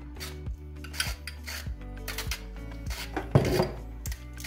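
A metal spoon scraping and knocking against a plastic mixing bowl as mustard is spooned out, with one loud clatter about three seconds in. Background music with a steady beat plays underneath.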